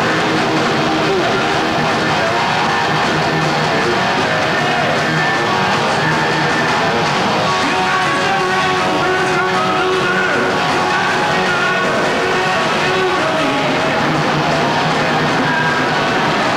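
Heavy metal band playing live: electric guitars and drums, loud and dense at an even level.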